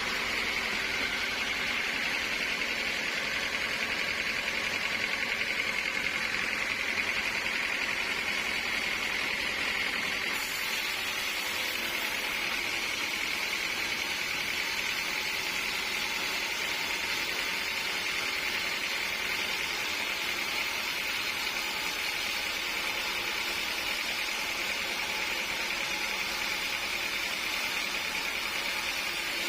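Sawmill machinery running steadily: a constant mechanical whine over a hiss, which gets slightly brighter about ten seconds in.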